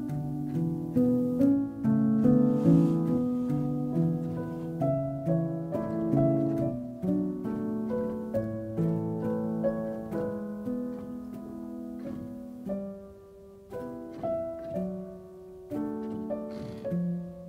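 Instrumental background music of plucked string notes in a gentle, steady run, thinning out and dropping in level for a few seconds about thirteen seconds in.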